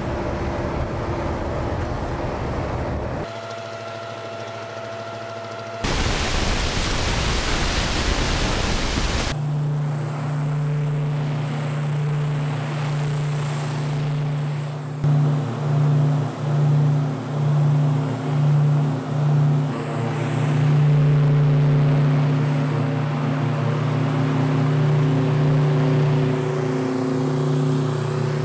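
Il-114-300's twin TV7-117ST-01 turboprop engines running with a steady, low, multi-toned drone. For a few seconds in the middle the drone swells and fades about once a second. It is preceded by a few seconds of loud hiss near the start.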